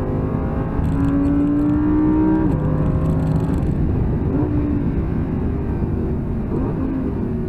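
Audi R8's 5.2-litre V10 engine heard from inside the cabin, accelerating at full throttle with a rising note and an upshift about two and a half seconds in. After about four seconds the steady rising note gives way to a rougher, uneven engine sound as the car lifts off and slows for a corner.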